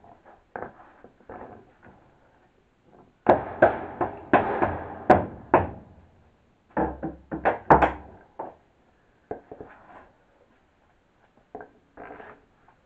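Hammer knocking on OSB subfloor panels: a run of sharp wooden knocks and thumps, densest and loudest a few seconds in and again around the middle, then a few lighter knocks.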